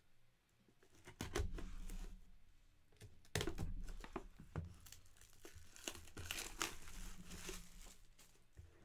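Packaging crinkling and tearing as a trading-card hobby box is opened by hand, with irregular rustles and sharp clicks and scrapes of the cardboard box; the loudest bursts come about a second in and again about three and a half seconds in.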